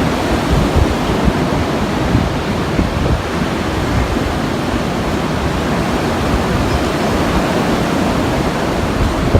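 Storm-force wind blowing in a steady, loud rush, buffeting the microphone with low rumbling gusts.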